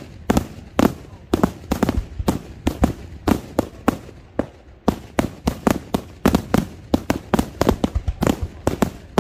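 Daytime aerial fireworks shells bursting overhead in a rapid, irregular barrage of sharp bangs, several a second.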